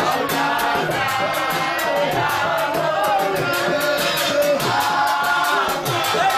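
Group of voices singing a moulidi, a devotional mawlid chant in praise of the Prophet, over a fast steady percussive beat.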